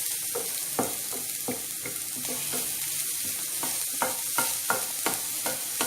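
Grated carrot and cashews sizzling as they fry in hot oil in a pan, stirred, with short knocks against the pan now and then.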